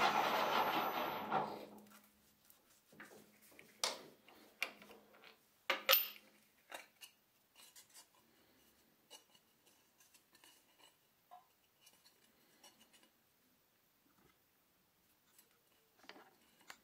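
A metal lathe that has been rolling over the edge of a pressed sheet-metal coin with a bearing roller runs down and stops within about two seconds. Scattered light metallic clicks and taps follow as the coin is handled, the loudest about four and six seconds in.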